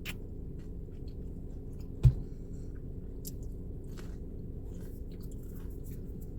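Close-miked chewing and biting of food, with small scattered clicks and crackles over a steady low hum, and a single sharp thump about two seconds in.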